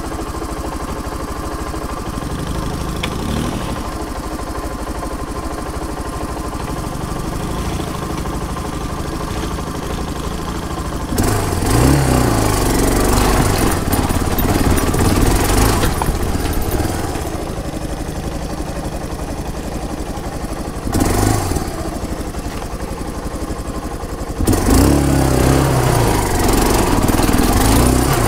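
Motorcycle engine idling steadily, then revving up and riding off about eleven seconds in. It drops back to a low idle, revs briefly once, and pulls away again a few seconds before the end.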